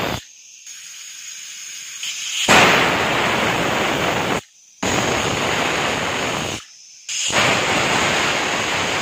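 Prestige Deluxe pressure cooker's weight valve venting steam in loud hissing whistles. One whistle cuts off just after the start. A softer hiss then builds, followed by three whistles of about two seconds each with short breaks between them. These are the whistles counted to time the cooking, about four on full flame.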